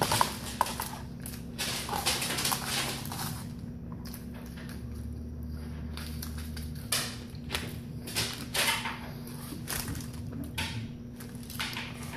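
Paper bag crinkling and rustling as handfuls of French fries are grabbed off it, mixed with chewing, over a steady low hum.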